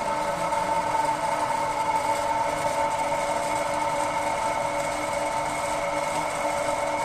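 Semi-automatic fabric cutting machine running, its motor turning the cutter knife and grinder stone with a steady whine.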